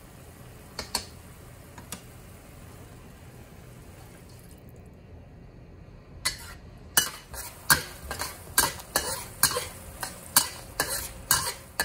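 Metal ladle and spatula stirring sauce in a steel wok over a low, steady simmer. A couple of faint clinks come early, then from about halfway a run of sharp clanks of metal on the wok, about two a second.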